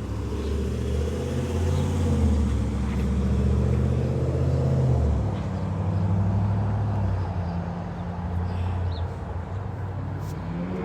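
Motor vehicle engine running, a steady low hum that shifts in pitch and eases off about halfway through.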